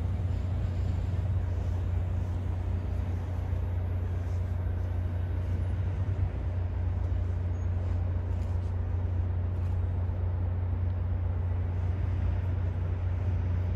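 Diesel train engine running steadily, a low, even drone.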